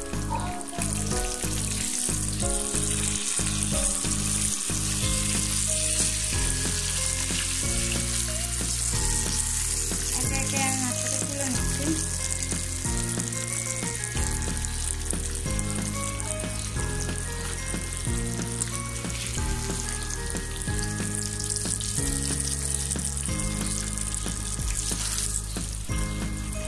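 Hot oil sizzling steadily as hilsa fish steaks shallow-fry in a pan, with a spatula working against the pan now and then as the soft, fully fried steaks are lifted out. Background music with steady changing bass notes plays underneath.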